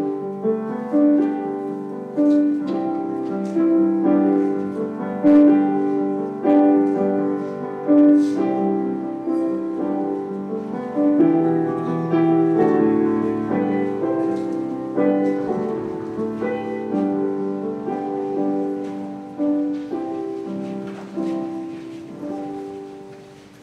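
Piano music: a slow tune played in chords, dying away near the end.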